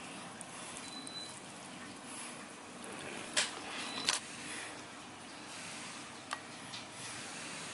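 Faint wet squishing of fingers mixing rice into coconut crab gravy and handling crab pieces on a plate, over a steady low hiss. Two sharp clicks come close together around the middle, and a smaller one follows later.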